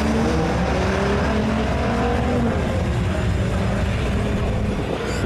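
A classic muscle car's engine accelerating hard off the drag strip start line. Its pitch climbs, drops at a gear shift about two and a half seconds in, then climbs again.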